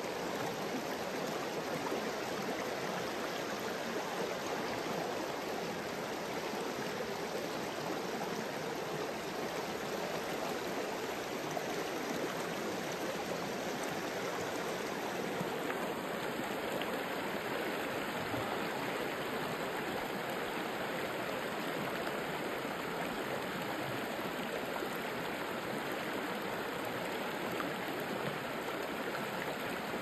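Shallow rocky river running over stones and rock ledges in riffles: a steady, even rush of water.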